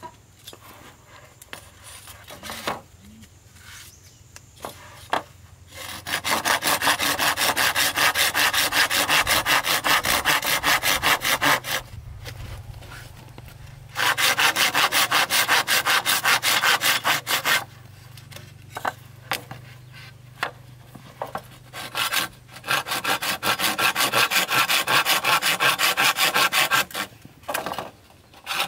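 Hand saw cutting wood in quick back-and-forth strokes. There are three long bouts of sawing, with short pauses between them.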